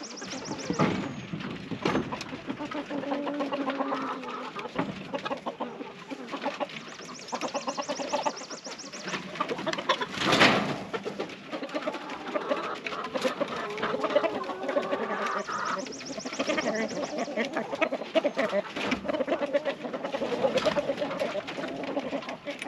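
A flock of chickens clucking and calling to one another, with one louder sound about ten seconds in.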